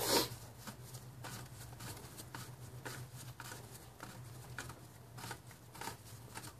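Faint handling noises, light rustles and small irregular clicks, over a steady low hum.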